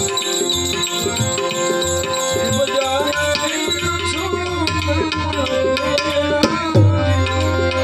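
Live Gujarati santvani devotional music: harmonium chords held steadily under tabla strokes. A man's singing voice glides in from about three seconds in.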